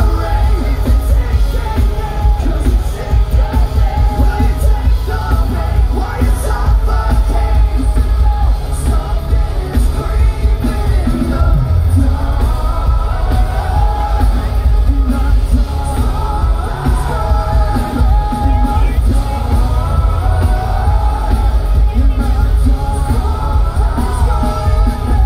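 A metalcore band playing live through a large outdoor PA, heard loud from within the crowd. Distorted guitars, bass and pounding drums carry a heavy low end under sung and shouted lead vocals.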